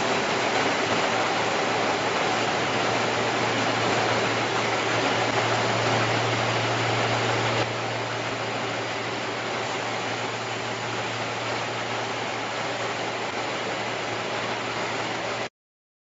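Automatic baby diaper production machine running at speed: a steady mechanical whir and hiss over a constant low hum. It drops a little in level about halfway through and cuts off abruptly near the end.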